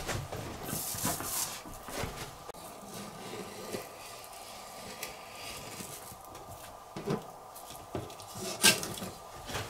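Long kitchen knife slicing and scraping through a yellowtail fillet against a cutting board: irregular rubbing, scraping strokes with soft knocks, and one sharp click near the end.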